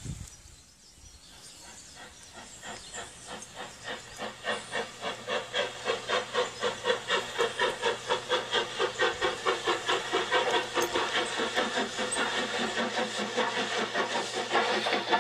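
Steam locomotive chuffing as it pulls away, its exhaust beats starting faint and slow, then growing louder and quicker to about four or five a second, with steam hissing.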